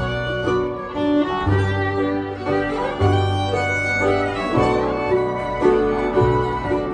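A fiddle waltz played live by a small acoustic band: the fiddle carries the melody over acoustic guitar and long, deep notes from an upright bass.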